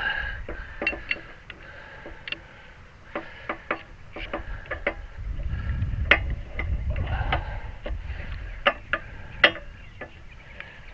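Irregular clicks and knocks of a home-made bee hive lifter being worked by hand, with a low rumble in the middle.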